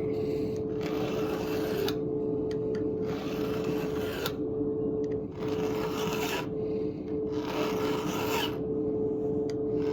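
Hand file rasping across the rakers (depth gauges) of a chainsaw chain in five strokes about a second long with short pauses between them, lowering the rakers so the chain bites harder. A steady low hum runs underneath.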